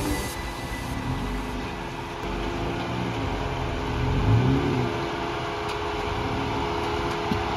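Jeep Wrangler's engine running at low revs as it crawls over creek-bed boulders, with a short rise in revs about four seconds in.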